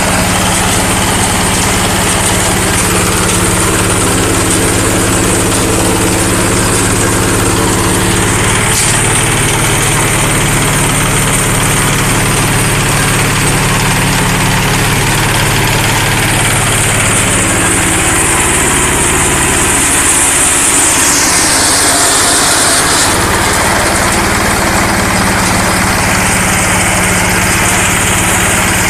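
Single-cylinder horizontal diesel engine running steadily, driving a hemp decorticator's drum. Its note shifts for a few seconds about two-thirds of the way through.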